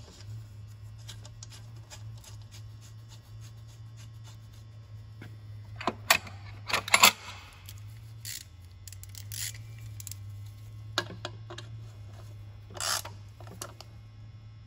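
Small clicks and knocks of a hand tool and metal parts being handled as a sensor is fitted to a carbon fiber intake pipe and its Allen bolt is snugged down, over a steady low hum. A louder clatter of a few knocks comes about six to seven seconds in.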